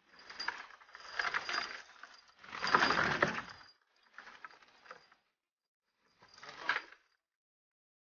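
Five bursts of dense rattling clicks, each lasting under a second to about a second and a half and cut off abruptly into silence; the loudest comes about three seconds in.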